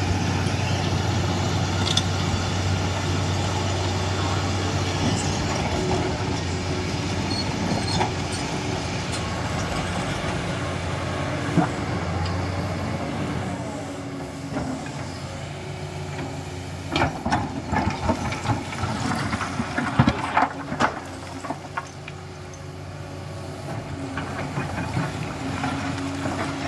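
Hydraulic excavator's diesel engine running steadily. About two thirds of the way in, a run of sharp metallic knocks and clanks comes over it.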